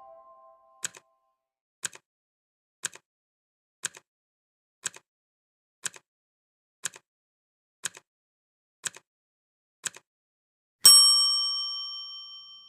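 Quiz countdown sound effect: ten clock-like ticks about once a second, each a quick double click. Near the end a single loud bell ding rings out slowly.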